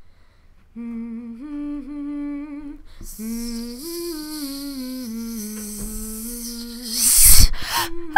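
A voice humming a slow, wordless melody. About three seconds in, a snake's hiss joins it and swells to a loud hiss near the end.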